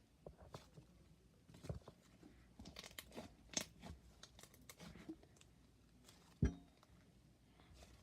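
Slime being worked by hand, with irregular crackles and small pops as it is stretched and squished and air is worked in. A duller thump about six and a half seconds in is the loudest sound.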